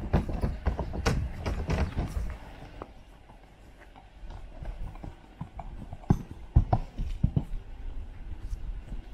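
Horse's hooves clattering and knocking on wooden obstacle platforms. There is a quick run of strikes as it crosses one platform, then a few heavier single knocks past the middle as it steps up onto a teeter board.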